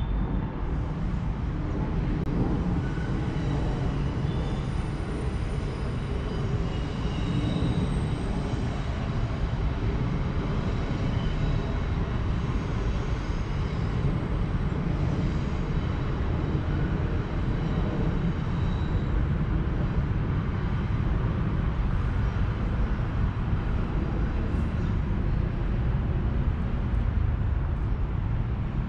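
Steady low rumble of vehicle traffic, with faint high whining tones during the first two-thirds.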